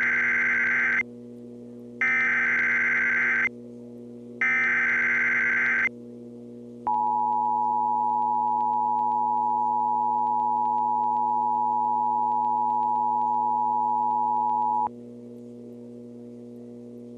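Emergency Alert System tones: three bursts of SAME digital header data, each about a second and a half long with about a second between them. Then the two-tone EAS attention signal holds for about eight seconds and cuts off suddenly, over a steady low hum.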